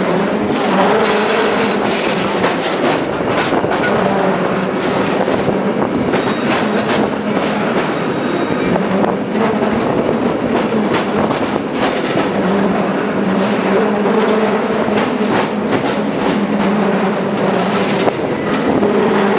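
San Francisco cable car running along its track, with a steady low hum and frequent clattering and clacking throughout.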